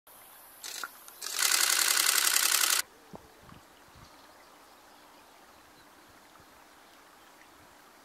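Camera shutter firing in a rapid continuous burst: a brief run just under a second in, then a longer, loud run of about a second and a half that stops abruptly. Faint outdoor background noise follows.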